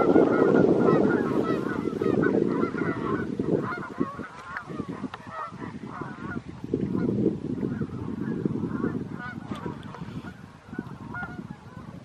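Large flock of Canada geese honking, many calls overlapping without pause. A low rushing noise runs under the honks, loudest in the first few seconds and again midway, and the whole chorus fades somewhat toward the end.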